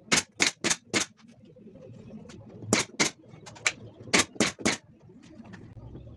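Pneumatic nail gun firing about a dozen shots, each a sharp hissing crack: four in quick succession, then two more quick groups a couple of seconds later.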